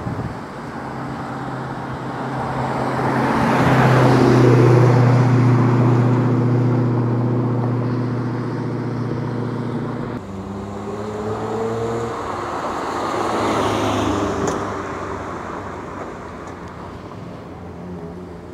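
Car engines driving past, the first swelling to a peak about four seconds in and fading away. After a cut about ten seconds in, a second engine passage rises in pitch and then fades.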